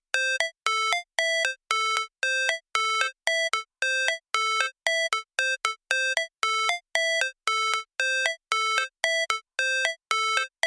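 Electronic ambulance siren in a rapid beeping pattern: short buzzy tones alternating between a higher and a lower pitch, a little over two beeps a second, each ending in a brief higher blip.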